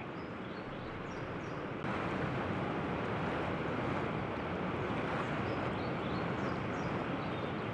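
Steady rushing of flowing river water, a little louder from just under two seconds in, with a few faint high chirps now and then.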